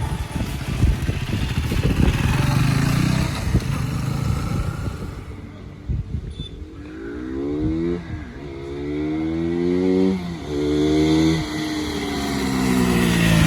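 KTM RC 200 BS6's single-cylinder engine on the move: running under load at first, then from about six seconds in revving up through the gears, its pitch dropping sharply at two upshifts, before easing off with the pitch falling near the end.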